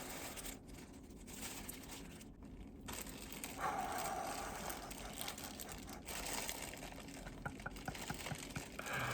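Packing material crinkling and rustling as a package is unwrapped by hand, with small irregular clicks and crackles.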